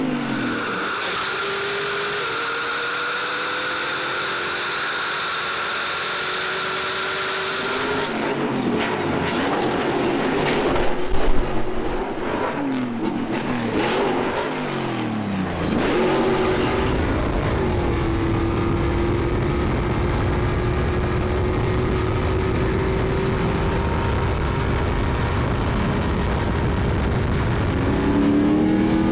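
Stadium Super Trucks racing at full throttle. First one engine note holds steady; then, from about 8 to 16 seconds in, several trucks go by in quick succession, their pitches falling as they pass, and the loudest pass comes around 11 seconds. After that a truck's engine drones steadily with a deep rumble, its pitch climbing again near the end.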